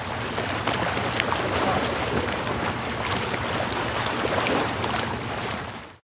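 Steady rush of splashing water with scattered small drips and splashes, fading in at the start and fading out just before the end.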